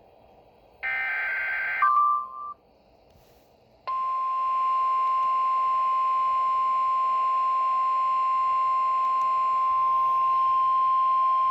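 Emergency alert tones: about a second in, a one-second burst of buzzy data-like tones and a brief beep, then from about four seconds in the single steady tone of the NOAA Weather Radio warning alarm, held unbroken, signalling a severe thunderstorm warning about to be read.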